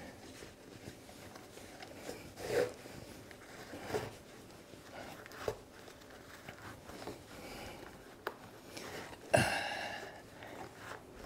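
Quiet room with faint, scattered handling and movement noises: soft knocks and rustles every second or two, a sharp click about eight seconds in, and a louder brushing sound a second later.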